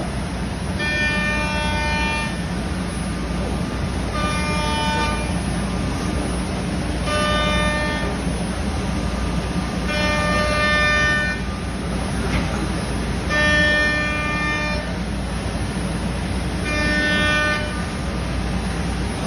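CNC router cutting a longboard base. It runs with a steady low rumble, and a pitched whine with many overtones rises in about six times, roughly every three seconds, lasting about a second each time as the machine works its passes.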